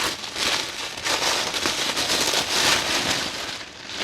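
Wrapping being pulled open around a gift, crinkling and crackling steadily.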